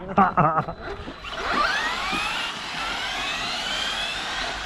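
Brushless electric RC car motor whining as the car accelerates: the pitch climbs from about a second in, then holds high over the hiss of the tyres on the ground.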